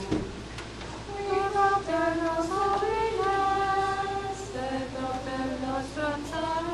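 Several voices singing church music together in one slow melody line with long held notes.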